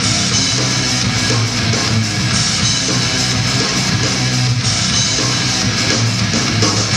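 Loud rock music with strummed guitar, playing steadily.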